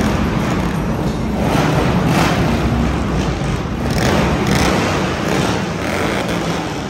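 Several custom bagger motorcycles running at low speed as they ride in one after another, engines held at a steady low idle.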